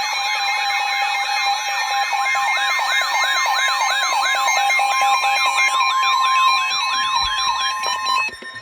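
Weather radio severe thunderstorm warning alert: a warbling siren sweeping up and down about two and a half times a second over a steady, high alarm tone near 1 kHz, the NOAA Weather Radio warning alarm. It cuts off suddenly about eight seconds in.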